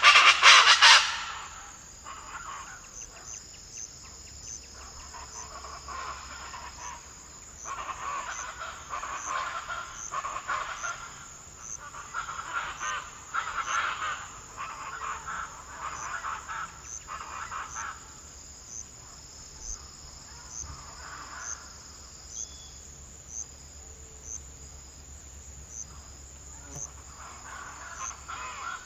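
Wild soundscape of insects and birds. Insects chirp steadily in a high register with regular ticks, while bouts of bird calls come and go. A loud burst of harsh calls cuts off about a second in.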